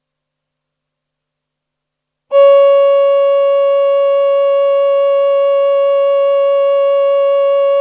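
Roland VP-330 Vocoder Plus synthesizer on its male Human Voice preset: after about two seconds of silence a single held note comes in sharply, swells briefly and settles into a steady pitched tone that sustains.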